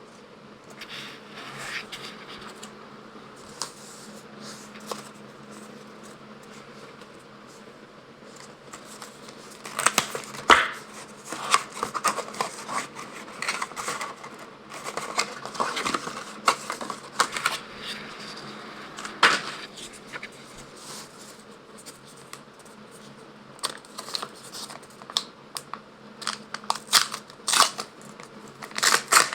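Small foil-wrapped Pokémon card packs being torn open and crinkled, with cards shuffled in hand: intermittent tearing, crinkling and scratching, busiest about ten seconds in and again near the end, over a faint steady hum.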